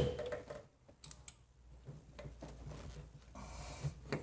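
A sharp metallic tap on a car door's steel panel, which rings briefly, then a few light clicks and handling sounds from stud-welder dent-pulling work.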